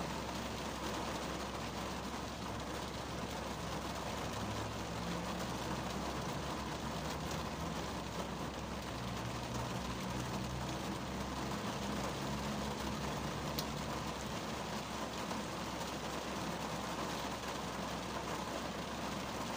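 Steady rain falling on a 2010 Kia Cerato's roof and windscreen, heard from inside the car's cabin as an even patter. A faint low hum comes and goes from about four seconds in until about thirteen seconds in.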